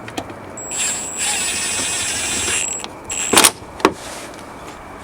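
A steady mechanical whirr, like a small motor or power tool, runs for about two seconds. About a second after it stops there are two sharp knocks, as the car's rear light assembly and trim are fitted back into place.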